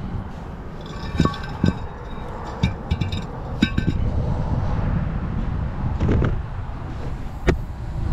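Steel brake rotor, hub and wheel bearing parts clinking and knocking together as they are handled. There is a quick run of ringing clinks in the first half and one more sharp click near the end.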